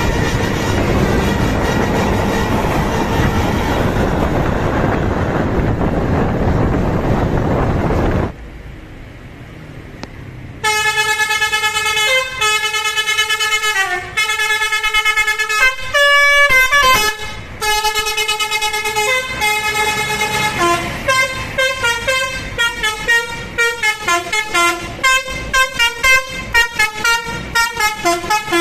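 A loud steady rushing noise that drops away about 8 seconds in. About 10 seconds in, a Basuri telolet bus horn starts playing a tune on several horn tones: held notes stepping up and down, one sliding note midway, then a fast run of short repeated notes near the end.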